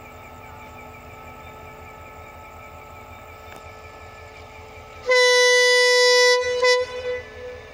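Diesel-electric locomotive (CRRC Qishuyan-built Thai Railway 5204) idling with a low steady rumble. About five seconds in, its horn gives one loud blast of about a second and a half on a single note, then a short toot that echoes away, as it signals before pulling out.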